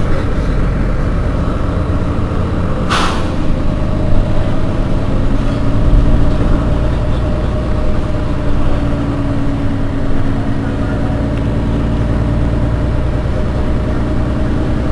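Mercedes-Benz Citaro facelift city bus idling at a stop, its engine running steadily with a low hum. About three seconds in comes one short hiss of released air from the bus's pneumatic system.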